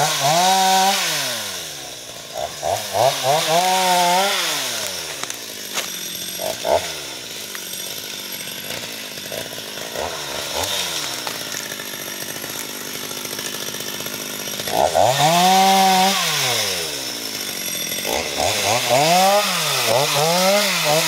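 Stihl MS 250 two-stroke petrol chainsaw revving up and down in repeated bursts as it is swung through brush and undergrowth. It drops to a quieter, steadier run in the middle, then revs hard again about fifteen seconds in and in quick repeated blips near the end.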